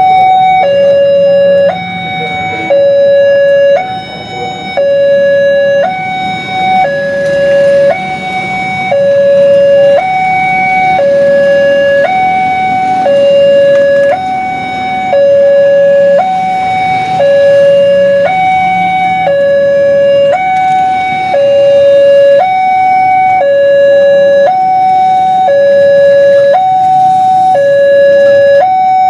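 Railway level crossing warning alarm sounding its two-tone signal, a higher and a lower tone alternating about once a second, while the crossing is closed and its red lights flash for an approaching train.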